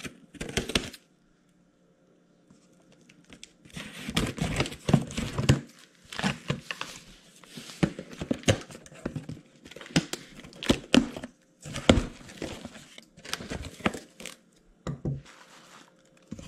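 Scissors cutting the packing tape on a cardboard shipping box and the box flaps being pulled open, with irregular crinkling, tearing and sharp clicks. There is a short quiet pause about a second in.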